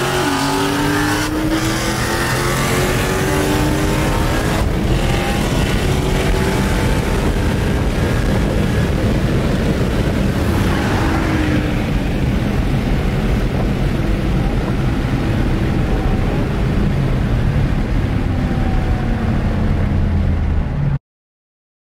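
Supercharged Hellcat V8 under hard acceleration in a roll race. The pitch climbs through the gears for the first few seconds, then the engine runs loud and steady before cutting off suddenly near the end.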